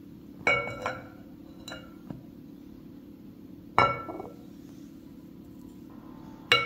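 Glass mixing bowl clinking and ringing as a ceramic bowl knocks its rim while flour is poured in, and again as a scoop of salt is added: a few sharp clinks, the loudest about half a second in, near four seconds and near the end, over a faint steady hum.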